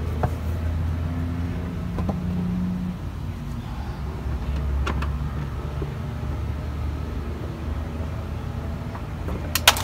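A low steady hum carries under a few light clicks as a screwdriver works the plastic fasteners of the wheel-well liner. A sharp double click comes just before the end.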